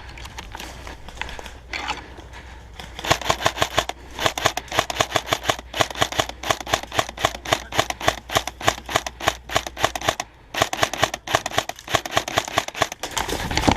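Airsoft rifle firing: a long run of rapid sharp shots, several a second, starting about three seconds in, with a short pause about ten seconds in.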